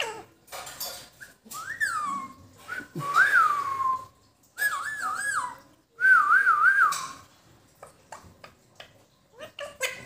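A person whistling a series of short phrases: a rise and fall, a long falling glide, then two warbling phrases of three quick wavers each, with faint clicks between them.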